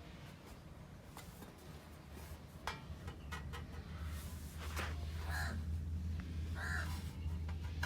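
Ceiling fan motor humming low, growing louder over the first few seconds and then holding steady, with a few sharp clicks. Crows caw twice in the background near the middle.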